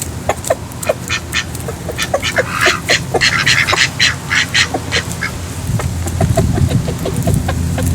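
Domestic ducks quacking, many short calls in quick succession, busiest in the middle. A low rumble builds near the end.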